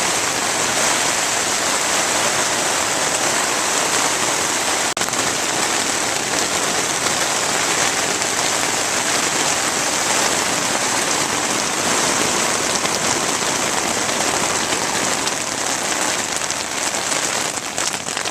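Steady rain falling, an even hiss with a brief break about five seconds in.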